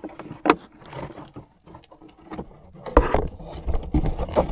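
Hollow plastic knocks, clicks and scrapes as plastic septic leach-field chambers are set in the trench and stepped on, with heavier low thuds near the end.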